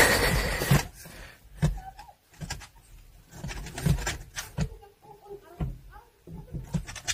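Yorkshire terrier scrabbling and thumping its paws against the inside of a car door and seat, a run of irregular knocks and rustles, loudest in the first second.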